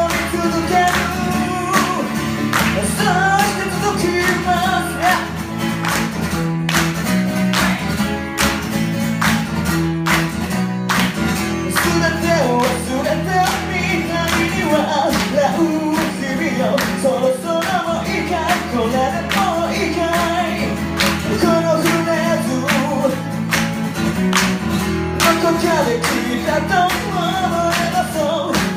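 A man singing a song while strumming an acoustic guitar, in a steady, regular strumming rhythm.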